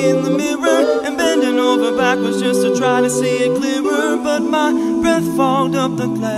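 Background music: an a cappella vocal group singing layered wordless harmonies with vibrato over a sung bass line, with no instruments.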